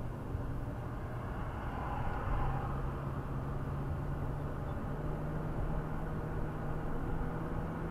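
Road noise inside a moving car's cabin at highway speed: a steady rumble of tyres and wind with a low steady hum underneath.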